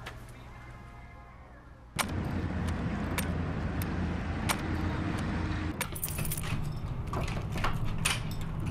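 Quiet room tone, then about two seconds in a steady low rumble of distant road traffic starts, with scattered footsteps and sharp knocks on pavement. A bunch of keys jangles about six seconds in, followed by clicks of a door lock and a door being opened near the end.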